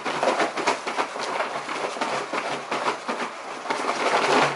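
Takeout food packaging being handled and opened at close range: a rapid, irregular crinkling and crackling of plastic.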